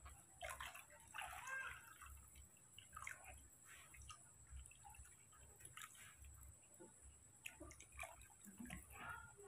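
Faint splashing of water poured in a stream from a metal kettle into a plastic basin.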